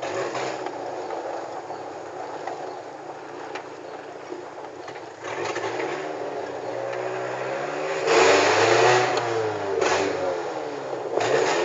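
VW Gol G4's engine and exhaust, running loud with the lambda sensor removed. It picks up about five seconds in, revs up and falls back at its loudest about eight seconds in, and picks up again near the end.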